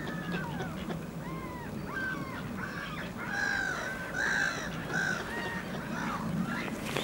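A flock of mallard ducks and gulls calling: many short, harsh calls overlapping, the loudest about three to five seconds in.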